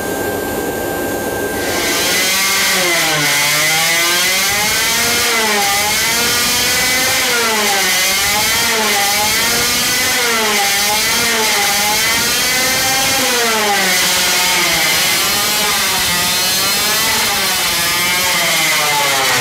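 Supercharged 50cc two-stroke engine running hard on a dyno, its pitch rising and falling over and over, about once a second, as the throttle is worked. It jumps in loudness a couple of seconds in. With the main fuel jet closed down it now takes full throttle without dying.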